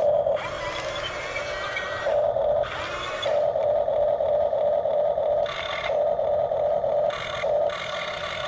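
Small electric motors of toy remote-control vehicles whining in repeated bursts, with short scraping noises as the toys work through the dirt.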